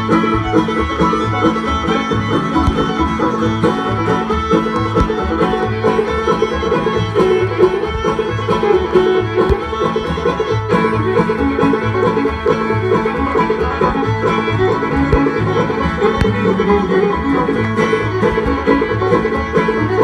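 Old-time string band playing a dance tune live: banjo, fiddle, acoustic guitar and upright bass, with a steady beat in the bass.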